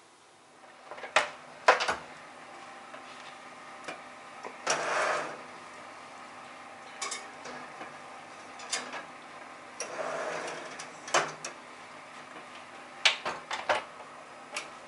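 Kitchen handling clatter: a glass baking dish going onto a wire oven rack and the oven door being shut. It comes as a string of sharp knocks and clicks, with two short scraping rushes, one about five seconds in and one about ten seconds in.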